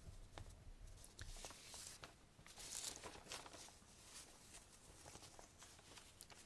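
Near silence between whispered passages, with faint soft clicks and a couple of brief hissy swells, about two and three seconds in.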